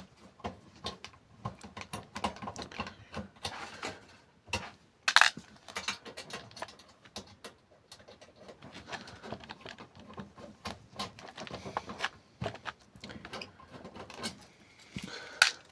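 Hard drive screws being undone from a PC case with a screwdriver: scattered small metallic clicks, scrapes and clinks, with a sharper clack about five seconds in and another near the end.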